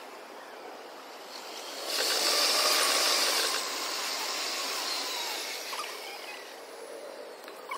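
Commuter trains running on the multi-track line, sped up six times, so the passing comes as a quick rushing noise. It swells about two seconds in and eases off after about three and a half seconds, with a short click near the end.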